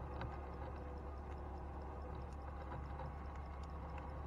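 Wet gill net being hauled by hand over the side of a small boat: scattered light drips, splashes and clicks over a steady low hum.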